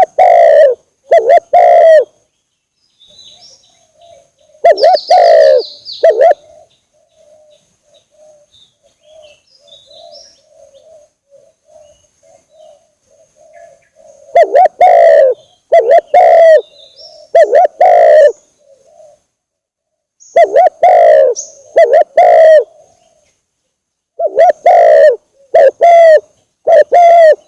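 Spotted dove lure call: loud, low cooing notes in groups of two or three, repeated with pauses of a few seconds. Between the groups a fainter cooing and faint high chirps of small birds can be heard.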